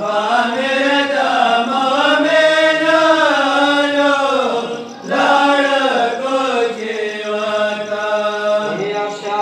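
A voice chanting a Pashto noha, a Shia mourning lament, in long drawn-out notes that waver up and down, with a short break for breath about halfway through.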